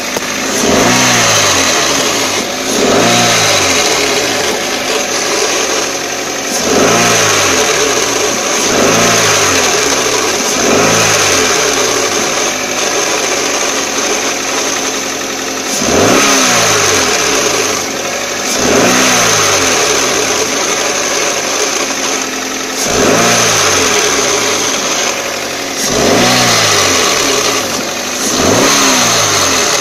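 2004 Toyota Corolla CE's 1.8-litre four-cylinder engine revved in short blips about every two seconds, the pitch rising sharply and falling back each time, over a steady high tone. It runs cold in neutral with the clutch pedal up, the condition that brings out a transmission noise which the owner hopes is a worn throwout bearing rather than the gearbox.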